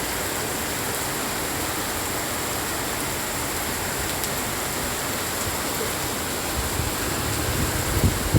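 Steady rain falling, an even hiss with no let-up, with a few low thumps near the end.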